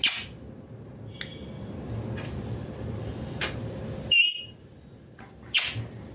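Parrot calls: a few short, sharp chirps, then about four seconds in one louder, harsh call with several tones stacked together, over a steady low background noise.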